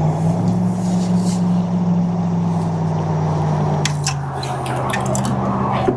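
A steady low hum runs throughout, with water splashing and squishing over it and a few sharp clicks about four seconds in and again near the end.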